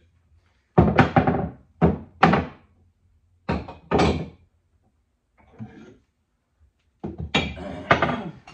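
Axe heads and wooden handles knocking and clattering against the plywood walls of a crate and against each other as axes are lifted out, in a string of separate thunks. A longer run of clatter starts about seven seconds in.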